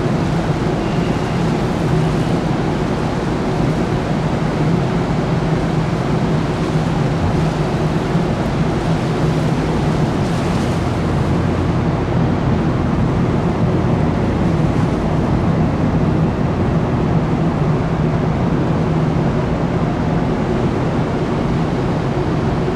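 Steady drone of a large car ferry under way: a low, even engine hum under a continuous rush of wind and sea noise.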